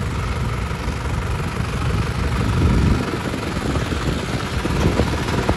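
Tractor's diesel engine running steadily, deep and rough.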